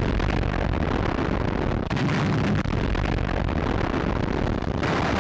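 Naval gunfire and explosions from a submarine shelling a patrol boat: a dense, continuous din with a few sharper bangs, on an old newsreel soundtrack.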